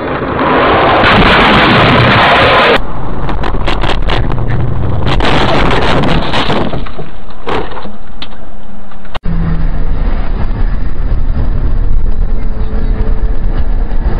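Dashcam audio of a car collision: a loud burst of crashing, scraping noise lasting about two seconds, then a string of sharp knocks and clatters. After a sudden cut about nine seconds in, the steady engine and road noise of a car driving on a highway.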